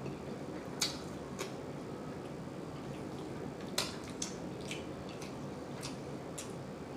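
Wet mouth smacking while chewing creamy chicken alfredo pasta: short, sticky clicks at irregular intervals, about eight in all, the loudest about a second in and just before the four-second mark, over a steady faint hiss.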